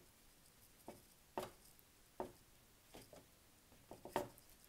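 Faint, soft taps of a tissue dabbed onto wet rough watercolour paper, blotting paint out of the sky: about six short dabs over four seconds.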